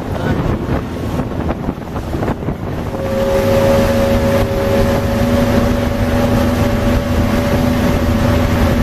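70 hp Yamaha outboard driving a 21-foot plywood panga at a moderate cruise, with wind buffeting the microphone and water rushing past the hull. About three seconds in the buffeting eases and the engine settles into a steady hum.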